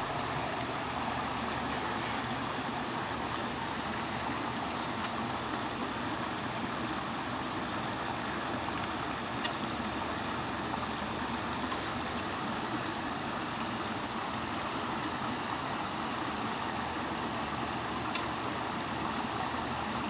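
Steady rushing noise of running water in the aviary's pond, even and unbroken, with a few faint short high ticks.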